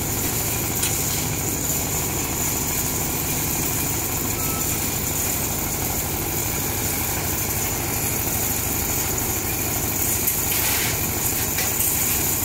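Engine of a trailer-mounted concrete mixer with lift hoist, running steadily at an even speed.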